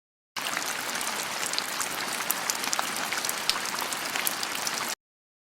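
An added sound effect: an even hiss dotted with many fine crackles, switching on abruptly and cutting off just as abruptly about five seconds later.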